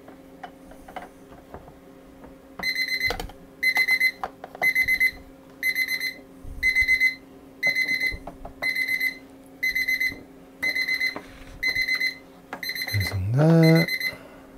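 Darkroom timer alarm beeping in quick high-pitched bursts, about one burst a second, starting a few seconds in: the black-and-white developer time is up. Near the end a person lets out a short rising hum over the beeps.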